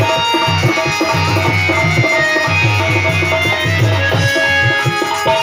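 Live Indian devotional bhajan music in an instrumental passage: a hand drum plays a quick, steady rhythm under sustained melody notes, loud and continuous.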